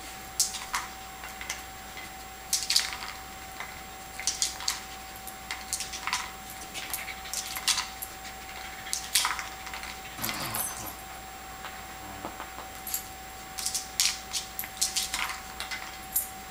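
Kong Wobbler treat dispenser knocked and tipped over by a dog, dry treats rattling inside its hard plastic shell in irregular clattering runs of clicks.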